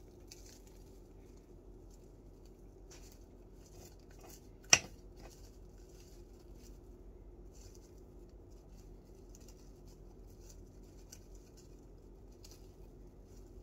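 Faint crinkling of plastic wrap and small scrapes and taps of a spoon, with one sharp click a little under five seconds in, the loudest sound.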